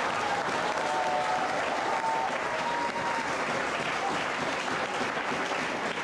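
Audience applauding, a steady crackle of many hands clapping.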